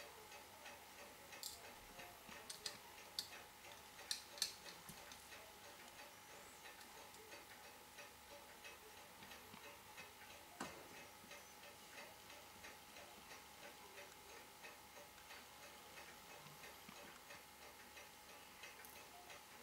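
Faint, steady mechanical ticking, with a few light clicks of steel tweezers on small parts of a wristwatch movement, several in the first few seconds and one about ten seconds in.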